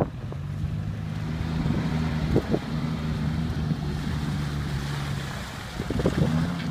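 Suzuki SJ off-roader's four-cylinder engine running at low, steady revs as it crawls through muddy ruts, with a couple of brief knocks from the vehicle.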